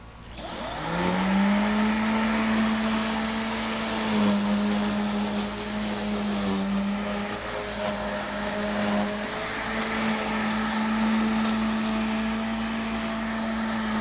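Homemade all-electric remote-control lawn mower running: its electric motor spins up about a second in and settles into a steady hum, with a hiss of noise over it as the mower drives across the lawn.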